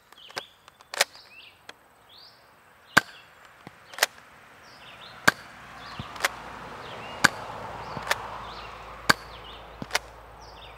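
Adventure Force Blitz 6 foam-dart revolver by Buzzbee being primed and fired round after round. It gives a string of sharp plastic snaps, the loudest roughly a second apart, with smaller clicks of the priming ring and cylinder between them.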